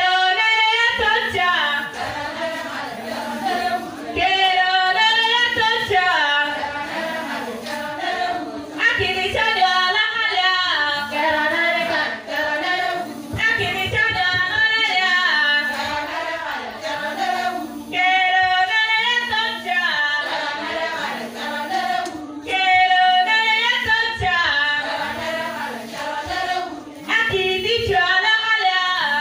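A group of Karamojong women singing together, with loud chorus phrases coming back about every four to five seconds.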